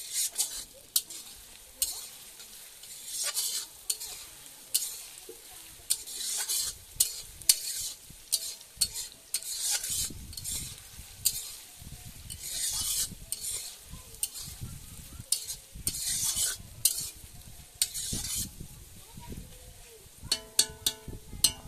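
Sliced onions sizzling in oil in a black kadai (wok), stirred with a spatula, which gives repeated bursts of hiss with scrapes and clicks against the metal pan. A quick run of ringing clinks comes near the end.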